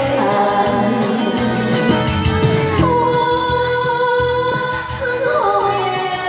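A singer performing with musical accompaniment; a long held note starts about halfway through.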